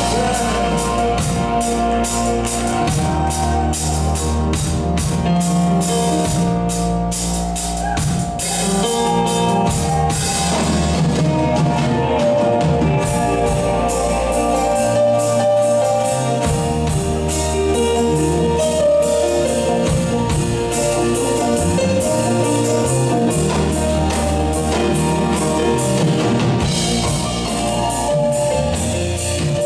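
Live rock band playing an instrumental passage: grand piano, electric and acoustic guitars, bass guitar and a drum kit keeping a steady beat.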